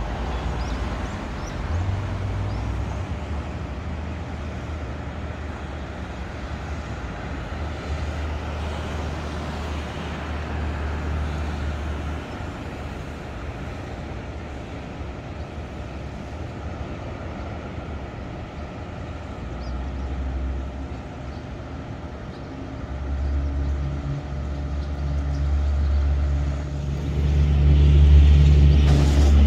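Steady city traffic noise with a low rumble. Near the end a heavier engine hum grows louder.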